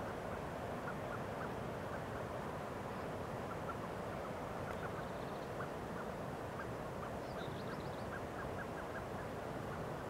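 Caucasian snowcock giving short clucking notes, repeated irregularly about two or three a second, over a steady hiss. A brief burst of higher chirps comes about seven seconds in.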